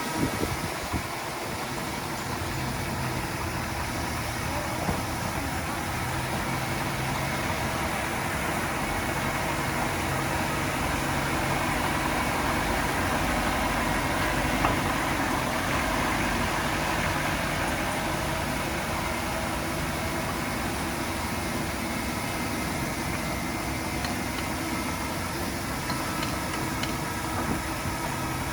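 Diesel engine of heavy earthmoving equipment running steadily, a little louder in the middle.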